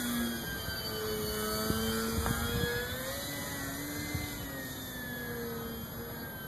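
Electric RC airplane's AXI 2826/10 brushless motor and propeller whining in flight, the pitch slowly rising and falling, with a few faint clicks.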